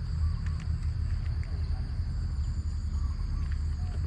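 Outdoor ambience: a steady low rumble with a constant high-pitched insect drone above it, and a few faint short chirps.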